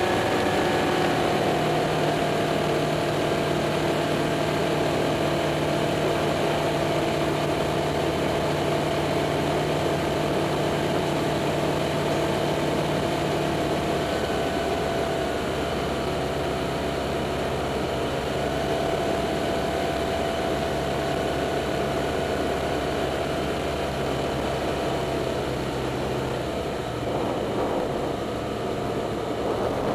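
Single-engine light airplane's piston engine and propeller running steadily, heard from inside the cockpit. The pitch steps down slightly about halfway through and again near the end, as power is reduced on the approach to a dirt airstrip.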